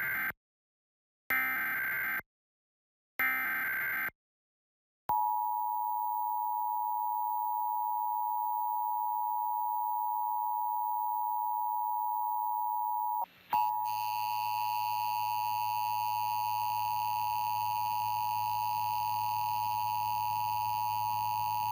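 Emergency Alert System test: three short screeching digital data bursts of the alert header, each about a second long with a second of silence between, then the steady two-tone attention signal, which sounds continuously from about five seconds in, with a brief dropout about thirteen seconds in and a faint hum under it afterward.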